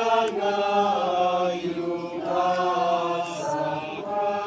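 A gathered congregation chanting a prayer in unison, long held notes that shift slowly in pitch.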